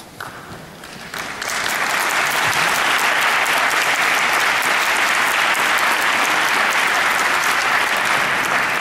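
Audience applauding, swelling in about a second in and then holding steady.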